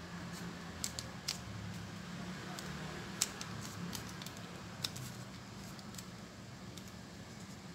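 Plastic sachet of sweetened condensed milk crinkling, with a few sharp crackles as it is squeezed and rolled up to empty it, over a low steady hum.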